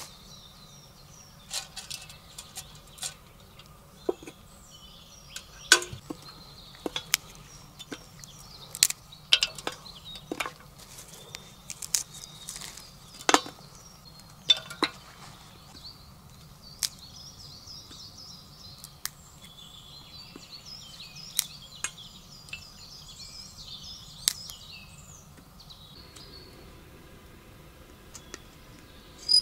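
Scattered sharp clicks and clinks as a stainless-steel storm kettle is handled and fed with fuel, loudest and most frequent over the first half. Small birds twitter and sing through much of the second half.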